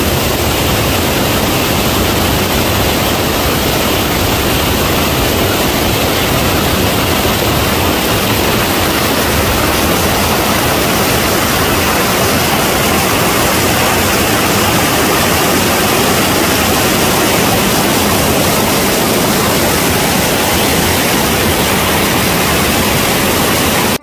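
A waterfall cascade rushing over rock ledges: a loud, steady wash of falling water.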